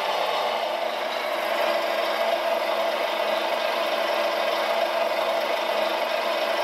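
Radio-controlled wheel loader (scale Volvo L250G) running as it holds and positions a truck chassis on its forks: a steady mechanical whir from its motors, with no pauses.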